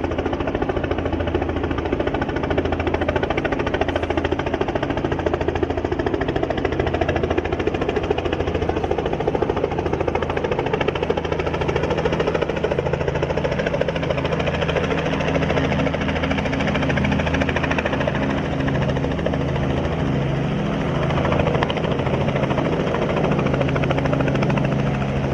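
Light helicopter flying in and hovering low over the ground, its rotor beating steadily over the engine's drone. The deeper engine hum grows fuller about halfway through as it comes down close to the pitch.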